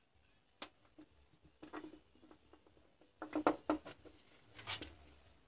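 Small clicks and light metallic taps from handling lithium-ion cells and a soldering iron during soldering, scattered through, with a quick run of clicks about three seconds in, the loudest, and another short rattle about a second later.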